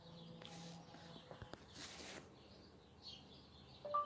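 Quiet room tone with faint birds chirping in the background, a short hiss about two seconds in, and a brief two-note chirp near the end.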